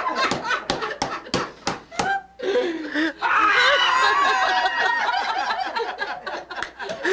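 A group of men and women laughing together around a card table. A run of sharp taps and knocks comes first, and the laughter swells loud and full about three seconds in.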